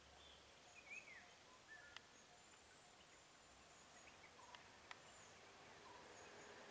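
Near silence: faint bird calls in the surrounding forest, a few short chirps and whistles, with a few faint sharp clicks.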